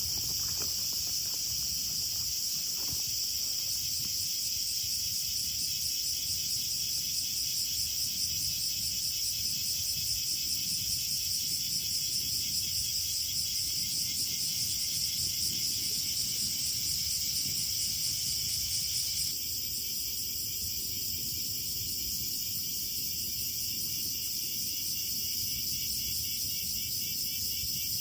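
Dense chorus of crickets and other insects chirring steadily in high, finely pulsing layers, with a low rough rumble underneath. The chorus changes abruptly and drops slightly about two-thirds of the way through.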